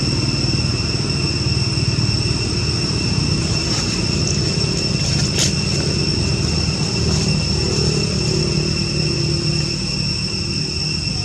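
Steady low rumble of motor traffic, with a steady high-pitched whine above it. A single sharp click comes about five seconds in.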